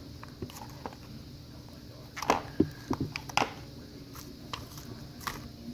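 Homemade clear-glue and borax slime being squished and poked by hand: a scatter of short, wet clicks and pops, most of them bunched about two to three and a half seconds in.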